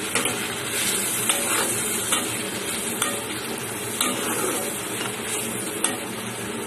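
Flat metal spatula stirring and scraping potatoes, tomatoes and spice paste in a kadai over a steady sizzle, with sharp clinks of the spatula against the pan about once a second.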